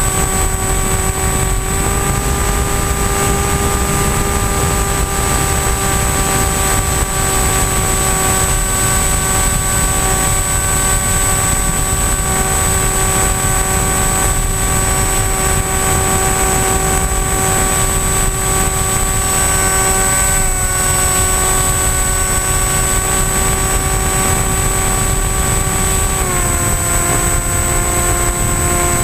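Electric motor and pusher propeller of an AXN Floater-Jet RC foam plane running steadily in flight, a steady whine heard from a camera on the plane over heavy wind rush. The whine dips briefly about two-thirds of the way through and steps down in pitch near the end.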